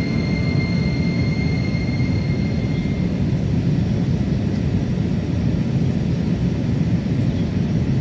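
Cabin noise of an Airbus A321-211 on approach, heard at a window seat over the wing: a steady rumble of airflow and its CFM56 turbofan engines. A faint high whine rides on it and stops about three seconds in.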